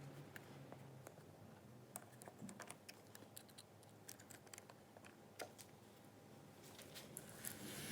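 Quiet, irregular light clicks and taps, with a faint low hum in the first second.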